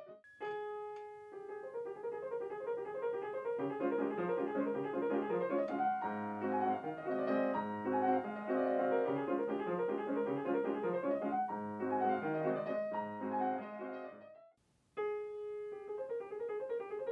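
Yamaha grand pianos playing a fast classical passage of quick runs. Near the end the playing breaks off for a moment, and the same passage starts again on another grand, opening on the same held note.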